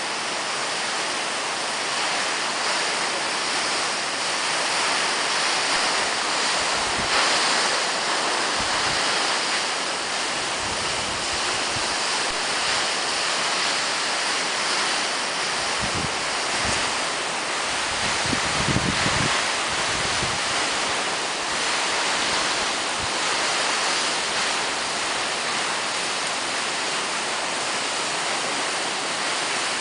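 Steady rushing noise of wind outdoors, with gusts buffeting the microphone in short low rumbles a few times, most of them around the middle.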